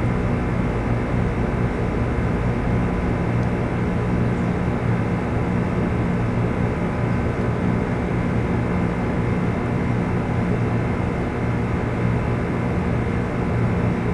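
Steady machine hum: an unbroken low drone with a noisy rush above it that does not change.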